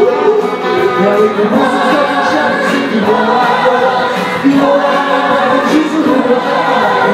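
A man singing into a handheld microphone, his voice amplified over the room.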